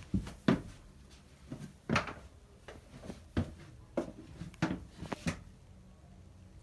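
A series of about ten irregular knocks and clicks, like handling or light bumping of hard objects. The loudest comes about half a second in, and they stop about five and a half seconds in.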